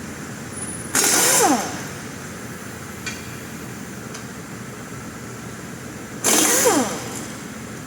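Two short bursts of a pneumatic impact wrench, about five seconds apart, each ending in a whine that falls as the tool spins down, as wheel lug nuts are worked off or on.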